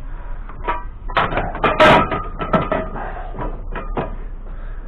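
Scrap metal pieces clanking and knocking as they are set down and stacked, a dozen or so separate hits, the loudest clang about two seconds in.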